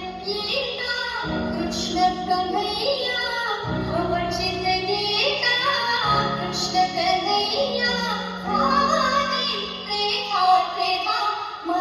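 A song with a high female singing voice over long held bass notes, played through a DJ sound system's bass and line-array speakers for a sound check.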